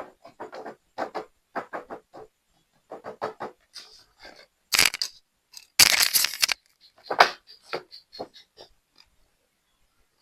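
Clicks, taps and rustles of a plastic toy and its packaging being handled during unboxing, with two louder crinkling bursts about five and six seconds in.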